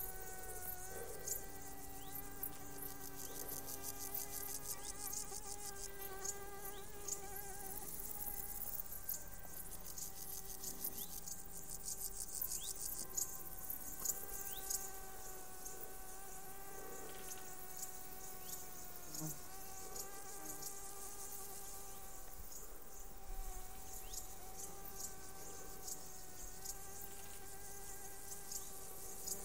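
Flying insects buzzing: a steady, slightly wavering hum over a fast, high-pitched ticking.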